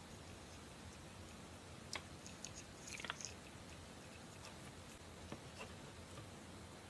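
Faint handling noises of small soft-plastic finger puppets: light clicks and rubs as fingers turn the toy, a short cluster of them about three seconds in, and a small tap shortly before the end as a puppet is set down on a wooden table.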